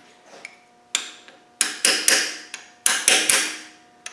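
Hammer tapping metal on metal to bend over a tab washer on an engine's camshaft thrust-plate bolt: about seven sharp taps, one and then two quick runs of three, each with a short ring.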